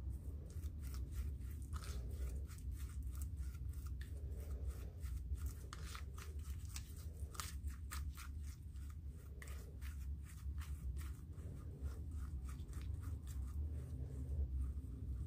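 Metal palette knife scraping, pressing and spreading chunks of frozen acrylic paint, making many small irregular crackling clicks over a low steady hum.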